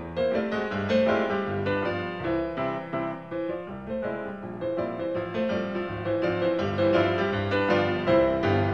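Piano music: a melody over a steadily moving bass part, with notes struck in a continuous stream.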